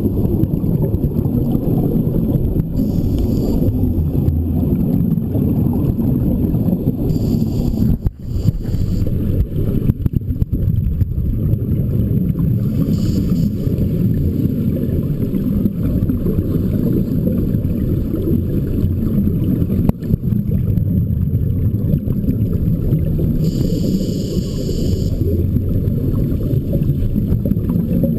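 Underwater recording from a dive camera: a steady low rumble of water against the housing, with four brief hissing bursts of exhaled bubbles from a diver's scuba regulator.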